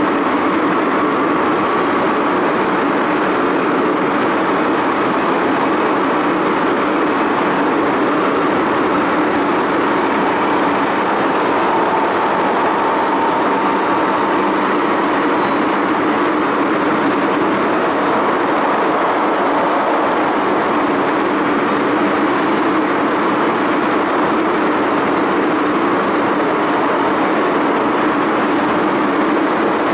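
MTR M-Train electric multiple unit running at steady speed through a tunnel, heard from inside the car. Its wheels and air give a constant rumble and rush, with a faint whine over it.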